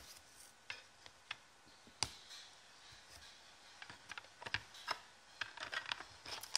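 Soft clicks and taps of a booklet trading card and a clear plastic card case being handled and set down on a wooden table. The clicks are scattered at first, with the sharpest about two seconds in, and come thicker and faster over the last second and a half.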